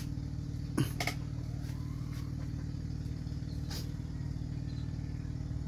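Steady low mechanical hum of a running motor, with a couple of light clicks about a second in and another near four seconds, which fit a thin stick tapping a ceramic plate.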